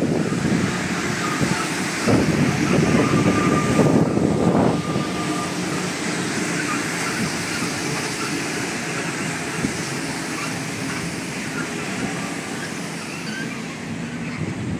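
Rubber-tyred Santiago Metro Line 1 train running away into a tunnel. It is loudest in the first few seconds, with a faint steady whine, then fades steadily as the train disappears.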